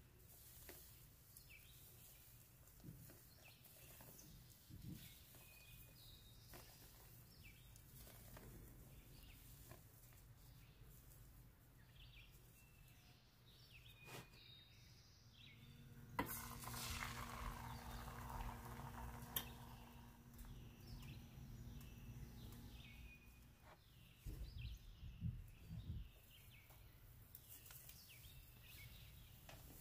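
Near silence, with faint, repeated bird chirps in the background and a brief, slightly louder soft noise a little past the middle.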